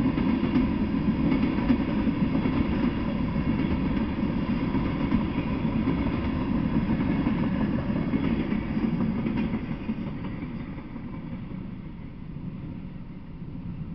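A freight train's tank cars and a hopper car roll past on the rails with steady wheel-on-rail noise. The noise fades from about ten seconds in as the last car goes by.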